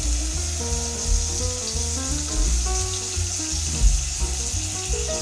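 Tap water pouring in a thin stream into a saucepan of water, a steady splashing hiss, over background music with a bass line and a stepping melody.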